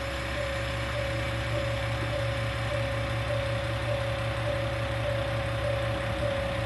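Diesel railcars idling at a station, a steady low engine hum with a slight throb. Over it a steady high tone pulses a little under twice a second.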